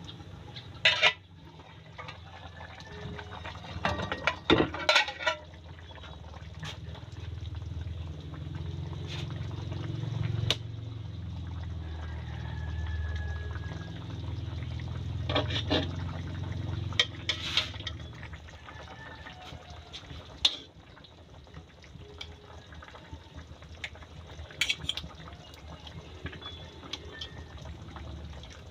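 Tomato-sauce stew simmering and bubbling in a steel wok over a wood fire, with a low rumble that swells through the middle. Sharp clinks and knocks come every few seconds, some of them a metal ladle striking the wok as the stew is stirred.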